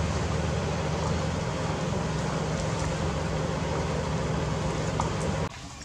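A steady low engine hum with a hiss over it, cutting off abruptly near the end.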